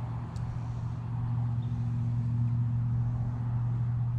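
Steady low machine hum with a fainter overtone above it, over light outdoor background noise; it grows a little louder about a second in.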